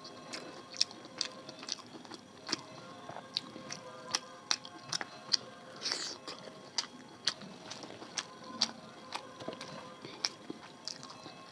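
Close-miked eating: chewing of a rice-and-curry meal, with sharp, irregular mouth clicks and smacks, about one or two a second.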